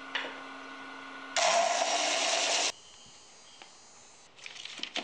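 Disc sander running with a steady motor hum, then a wooden wedge pressed against the sanding disc for about a second and a half, a loud sanding hiss that stops suddenly. Near the end, light clicks of small wooden blocks being handled.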